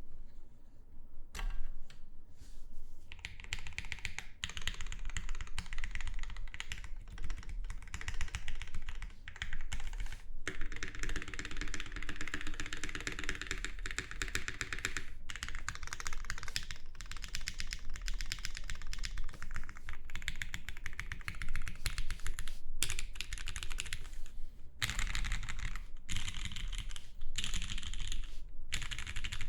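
Typing on a custom 65% mechanical keyboard with a polycarbonate case and aluminium plate, fitted with lubed and filmed Gateron 8008 Ink linear switches and GMK doubleshot ABS keycaps. The keystrokes come as a fast, continuous stream of clicks and clacks that starts about a second in and breaks off briefly twice.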